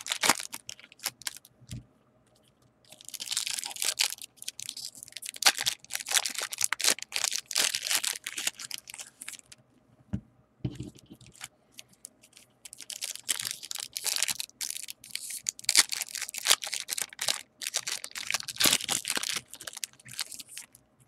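Foil wrapper of a Bowman Platinum baseball card pack crinkling and tearing as it is opened by hand. The sound comes in two long stretches of crackling, with a pause of a few seconds between them.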